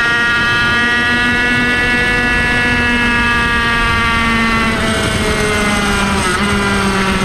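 Kreidler Van Veen 50cc racing motorcycle's two-stroke single-cylinder engine running at high revs under way. The pitch sags gradually through the middle and drops lower about five seconds in as the revs come down.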